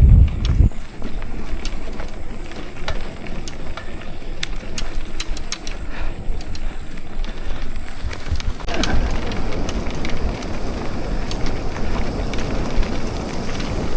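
Mountain bike being ridden along a dirt trail: tyres rolling over rough ground with scattered clicks and rattles, and wind buffeting the microphone, heaviest just at the start.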